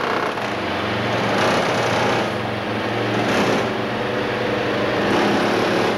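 A motor running steadily, a continuous mechanical drone with a low hum.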